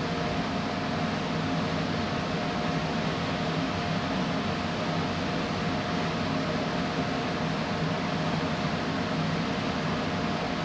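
Steady hum and hiss of ventilation and air conditioning, with one steady tone held through it and no change in level.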